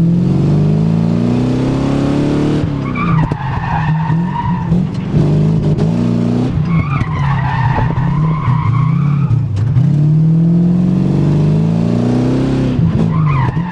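V8 drift car engine revving hard, its pitch climbing then falling away, while the tyres squeal through long slides, about three times.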